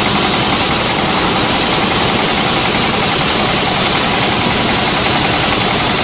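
Sawmill machinery running steadily with a loud, even noise, the saw not cutting while a log is loaded onto the carriage.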